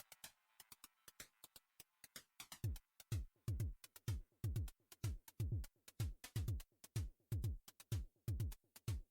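Electronic background music: light hi-hat ticks, joined about two and a half seconds in by a deep electronic kick drum, about two beats a second.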